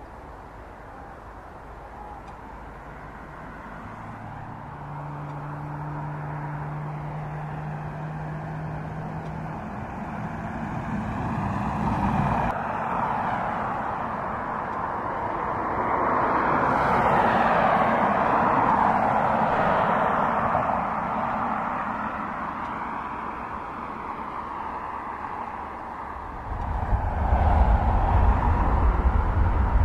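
Boeing 777F's twin GE90 turbofans at taxi thrust: a steady jet roar and whine that grows louder as the freighter draws close, with slowly sweeping, phasing tones as it moves. A deep rumble comes in suddenly near the end.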